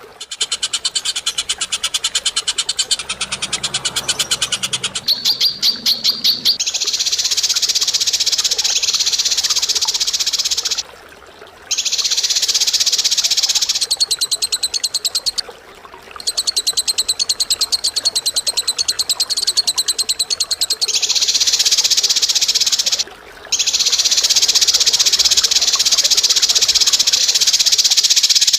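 A bird giving long, very rapid rattling trills, each run lasting several seconds, with brief pauses between them.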